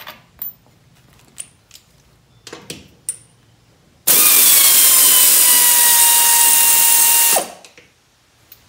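Pneumatic air ratchet running for about three seconds, spinning off a nut on a mower-deck spindle mount: a loud hiss of exhaust air with a motor whine that drops slightly in pitch and then holds, then cuts off abruptly. A few light clicks of the socket being fitted come before it.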